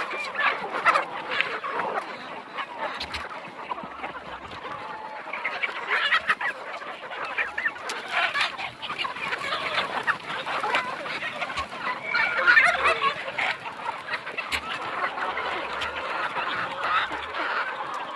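A large flock of Nepali local chickens clucking and calling all at once, many overlapping calls without a break.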